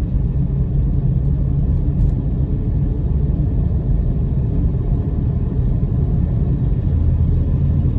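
Car with a ZF 4HP18 four-speed automatic accelerating gently in second gear: a steady low engine and road rumble with no squeal. Under this soft throttle the transmission's 2-3 squeal does not appear.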